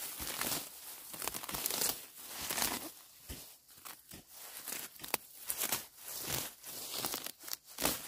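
Weeds being pulled up by hand from a soil bank: irregular rustling of leaves and the tearing of stems and roots coming out of the earth.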